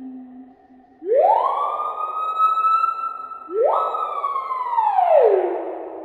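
Screaming piha's loud whistled call: a whistle that sweeps sharply up and holds for about two and a half seconds, then a second that sweeps up, holds and glides back down near the end.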